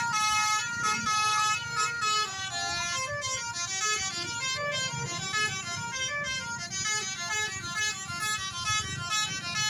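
Basuri telolet bus horn, a multi-tone musical horn, playing a fast melody of stepped notes one after another.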